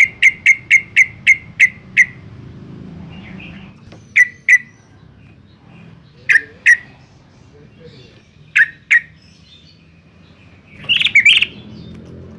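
Yellow-vented bulbul singing: a fast string of short, repeated chirps for the first two seconds, then chirps in pairs every two seconds or so, and a busier, jumbled burst near the end.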